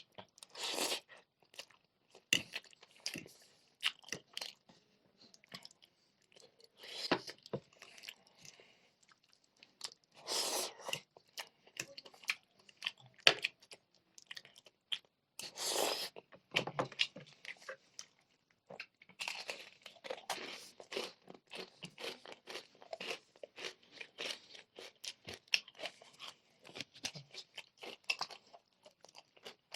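Close-miked eating: crunchy bites and chewing of crispy fried chicken pieces and spicy noodles, in many quick crackles with a few longer, louder bites about a second in and near ten and sixteen seconds.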